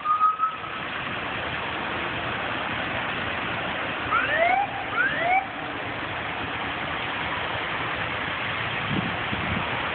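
Steady noise of idling and passing vehicles, with two short rising siren whoops from an arriving emergency vehicle about four and five seconds in. A siren glide ends just after the start.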